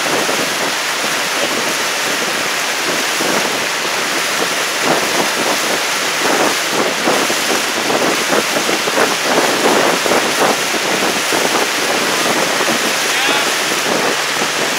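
Wind buffeting the microphone over splashing water, a steady rush with uneven gusty flutters.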